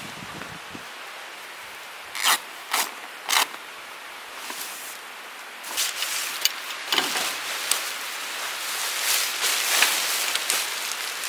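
Rustling and crinkling of an Aricxi camping shelter's fabric as it is pulled from its bag, unfolded and shaken out. Three short sharp rustles come about two to three seconds in, then near-continuous crinkling and flapping from about six seconds on.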